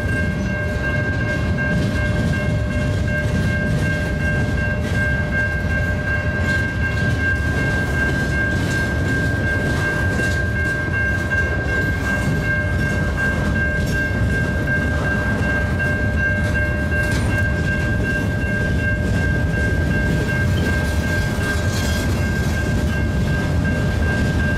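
Freight train of gondola cars loaded with pipe rolling past close by: a steady heavy rumble of wheels on rail with scattered clacks. A constant high-pitched ringing tone sits over it throughout.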